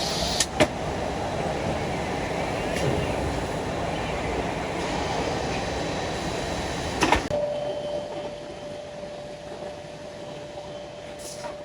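CNC six-sided tool-change drilling machine running, a steady machine noise with two sharp clicks near the start and another about seven seconds in. After that the noise drops and a steady whine remains.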